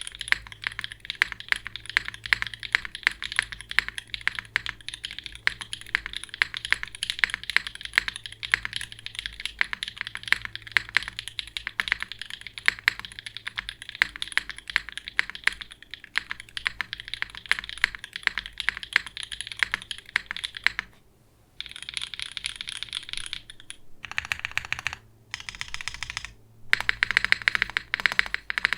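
Typing on a gasket-mount, aluminium-plate mechanical keyboard with pre-lubed Gateron EverFree Cedar linear switches (polycarbonate top, nylon bottom housing, POM stem) and GMK keycaps. The keystrokes are slightly muted and low-pitched. A continuous stream of keystrokes runs for about three-quarters of the time, then breaks into short separate bursts with brief pauses between them.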